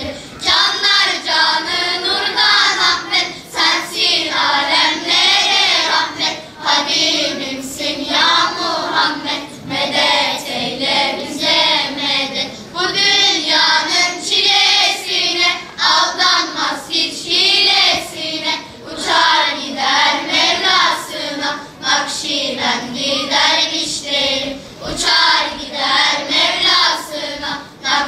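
A children's choir singing together in phrases with short breaths between them.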